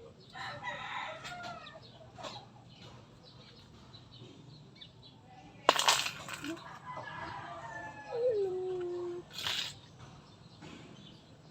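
Animal calls: short pitched calls near the start, a sharp knock about halfway, then a held call that bends and settles lower, followed by a short noisy burst.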